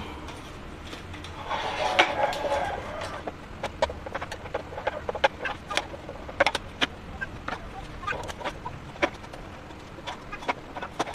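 Small metal clicks and taps of bolts, nuts and a screwdriver working against an aluminium lamp-hood channel while an acrylic holder is screwed on. A louder, longer noise comes about two seconds in.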